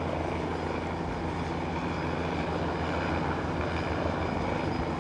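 Helicopter running steadily overhead, a low, even drone of rotor and engine.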